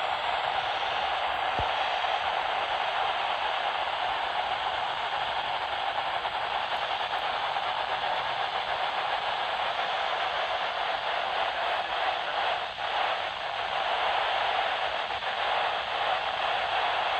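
Steady static hiss from a radio or TV receiver tuned to a channel with no clear signal, dipping briefly about thirteen seconds in.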